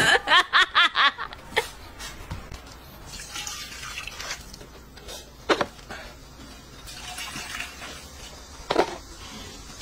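Wet noodles and broth poured from paper cups into metal bowls, with liquid splashing and a few sharp clicks against the metal. It is preceded in the first second by a short run of quick vocal bursts.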